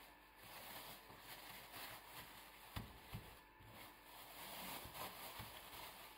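Near silence: a faint hiss with a few soft low knocks, a pair about three seconds in and one more near the end.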